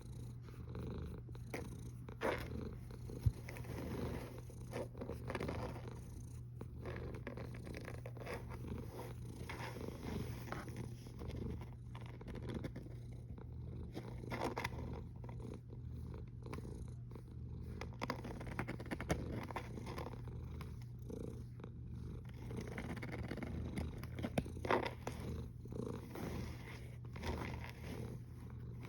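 Domestic cat snoring in its sleep, a steady low sound that pulses with its breathing.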